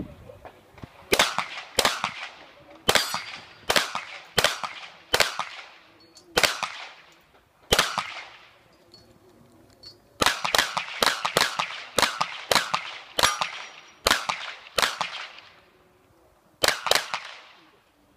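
A Tanfoglio pistol firing about twenty shots in a practical-shooting stage, singly and in quick pairs, each crack trailing off in a short echo, with a pause of about two seconds midway and a shorter pause before a final pair.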